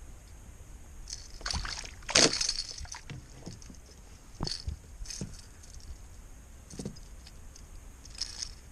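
Water sloshing against a kayak hull, with a few short splashes or knocks scattered through it; the loudest comes about two seconds in.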